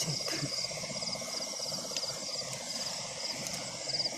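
Night chorus of calling insects and frogs: a continuous fast pulsing trill underneath, with short high chirping trills repeating about every second.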